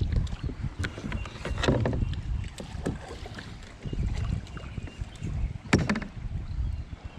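Kayak on moving water: a few sharp knocks and splashes over a steady low rumble of wind on the microphone, the loudest knock about three-quarters of the way through.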